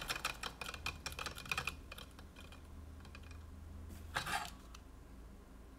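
3D-printed plastic miniature siren (version 1) winding down after being run. Its rotor grinds in quick clicks that slow and fade over about two seconds. About four seconds in there is a brief scuff as a hand reaches for it.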